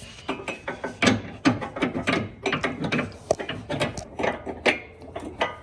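Ratcheting wrench clicking in short irregular runs as it turns the nut on a suspension end link, with small metal knocks in between.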